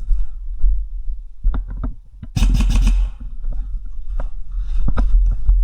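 Footsteps and gear movement on debris, picked up by a body-worn camera: a heavy low rumble of handling and movement with scattered sharp knocks. About halfway there is a loud, brief crunching scrape lasting about half a second.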